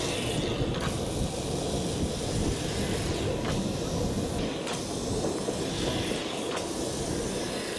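Vintage electric tram running along its track, heard from the open upper deck: a steady rumble and hiss from the wheels on the rails, with a few sharp clicks.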